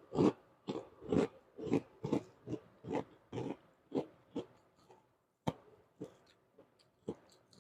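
A person chewing a mouthful of food close to the microphone, with wet mouth smacks about twice a second that slow down and give way to a few faint clicks in the last couple of seconds.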